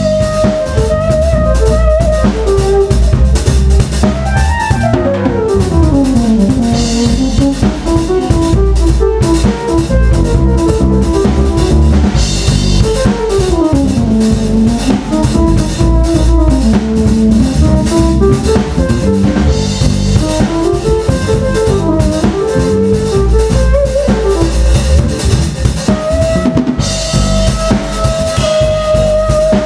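Jazz trio improvising live on keyboards, electric bass and drum kit: busy drumming with kick, snare and cymbal washes under melodic runs that sweep down in pitch and back up several times.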